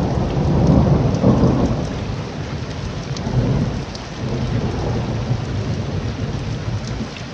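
Thunderstorm: heavy rain with rolling thunder. The low rumble swells in the first second and a half, rises again around three and a half seconds in, and eases toward the end.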